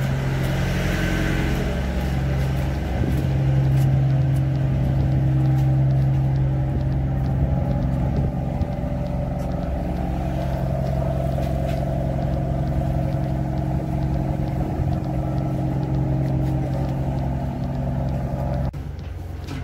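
A cargo ship's engine running steadily, a deep even hum that cuts off suddenly near the end.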